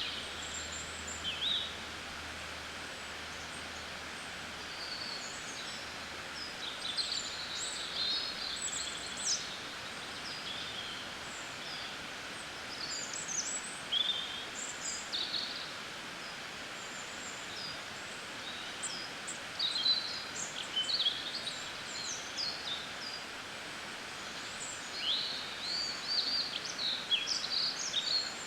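Birds chirping in many short, high calls scattered throughout, over a steady background hiss of outdoor ambience.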